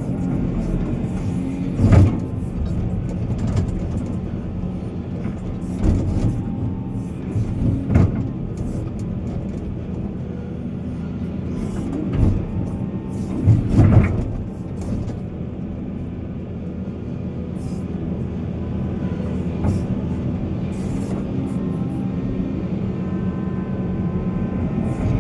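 Heavy diesel earth-moving machinery running steadily, with several loud knocks and clanks of metal and rock, the biggest cluster a little past halfway.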